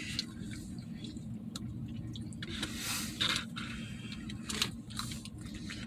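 People eating pizza in a truck cab: chewing and rustling with small clicks, and a louder rustle about three seconds in, over a steady low hum.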